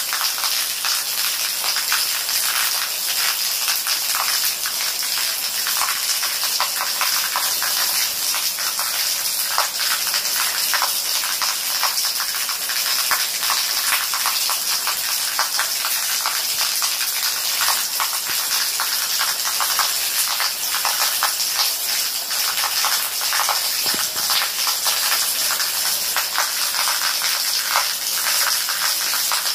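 Steady rain falling on broad leaves: a continuous hiss made of countless tiny drop impacts, unchanging in strength.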